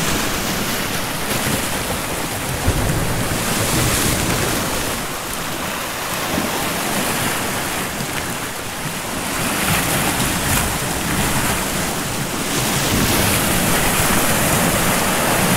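Sea swell surging and breaking white over rocks: a steady rushing wash that rises and falls, growing louder near the end.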